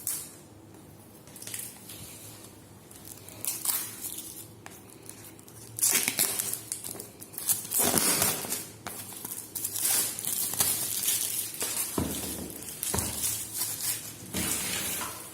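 A smartphone retail box and its packaging crinkling and scraping as they are handled and opened. The noise comes in irregular bursts that become denser and louder about six seconds in, with a few sharp clicks.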